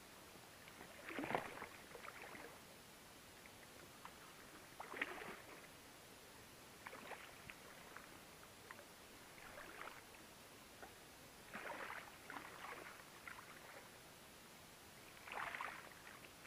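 Faint, intermittent water splashes as a hooked wels catfish thrashes at the surface beside an inflatable boat while being landed by hand, about six short splashes with quiet in between.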